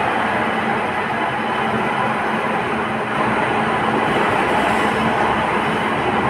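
A loaded goods train's covered freight wagons rolling past close by: a steady rumble and rattle of steel wheels on the rails.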